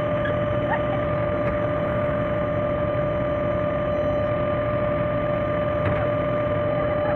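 Excavator running steadily: an even engine drone with a constant high whine over it.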